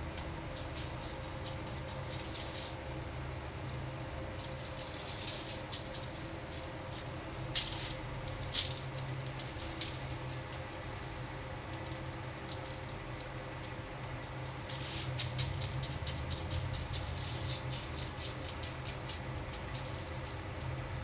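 Plastic shaker bottle of dry barbecue rub shaken over racks of pork spare ribs in repeated bursts, the granules rattling in the bottle, with two sharp knocks a second apart about a third of the way through. A steady low hum runs underneath.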